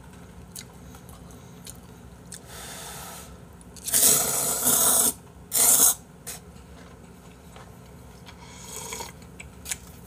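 A person slurping noodles loudly from a bowl held at the mouth. There is a long slurp about four seconds in and a short one about a second later, with fainter slurps before and after.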